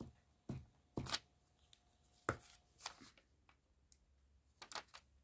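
About half a dozen light, irregular taps and knocks of hands working at a craft desk, handling paper and setting a plastic glue stick down on the cutting mat.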